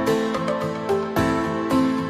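Background instrumental music: a gentle melody of pitched notes changing about every half second.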